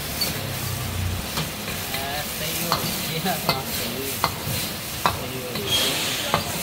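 Sweet and sour pork in sauce sizzling in a steel wok over a gas flame while a metal ladle stirs and tosses it, with about five sharp clanks of the ladle on the wok in the second half.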